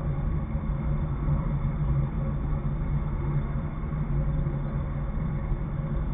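Engine idling steadily, a constant even hum.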